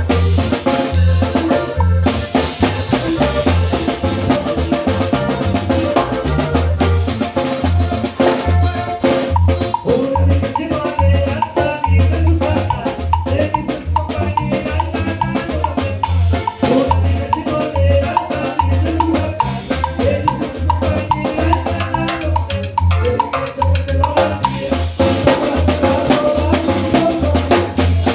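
Norteño band music in a fast zapateado rhythm, led by a drum kit with a steady, even bass pulse.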